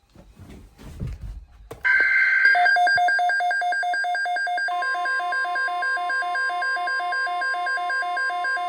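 Emergency Alert System weather-radio alert for a tornado watch: after a faint low rumble, a brief burst of data noise, then rapid electronic beeping about five times a second. About three seconds later a steady alert tone joins the beeping.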